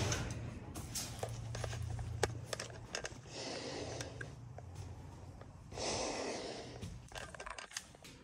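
Footsteps and small scuffs and clicks as a person walks across a tarp-covered garage floor, with two breathy puffs of breathing. A low hum fades out about two and a half seconds in.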